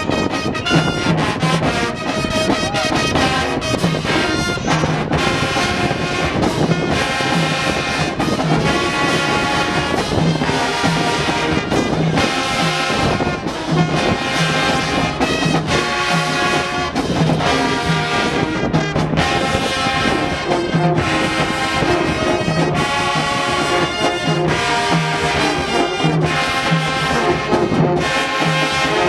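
High school marching band playing, brass and trombones carrying the tune over drums with a steady beat.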